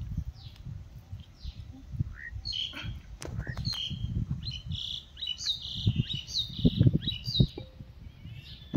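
Small birds chirping: many short chirps that sweep in pitch, busiest through the middle. Low rumbling thuds sit underneath, loudest a little before the end.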